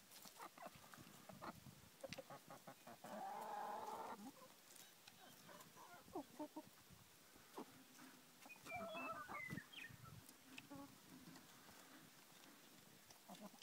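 A flock of hens clucking faintly as they feed, with one drawn-out call about three seconds in and a cluster of short clucks and higher chirps around nine seconds, over faint ticks.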